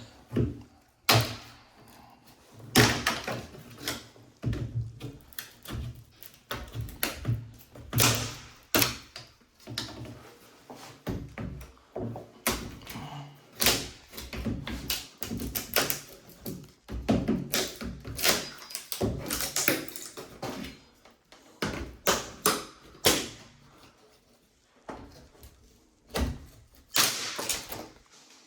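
Hammer knocks and scraping while pulling drywall corner bead off a wall corner: many sharp, irregularly spaced strikes with rough scrapes between them.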